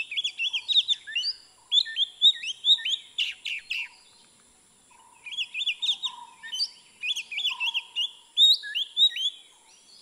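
Oriental magpie-robin calling: quick runs of varied, zigzagging whistled notes, in two long bursts with a pause of about a second near the middle.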